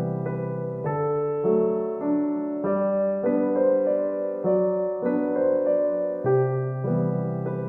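Background piano music: a gentle, steady melody of sustained notes over a bass line.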